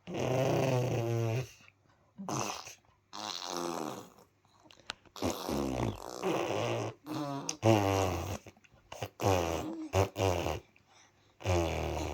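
A man making silly vocal noises for play, about nine buzzing, snort-like bursts, many sliding down in pitch.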